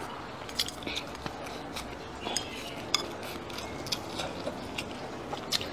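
Close-miked eating: chewing a mouthful of rice and stir-fried green chillies, with scattered sharp clicks from the mouth and from chopsticks on the ceramic bowl.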